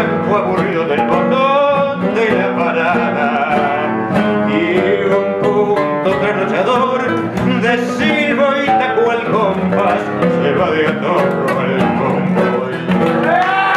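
Live tango: several acoustic guitars playing a tango accompaniment, with a man singing over them.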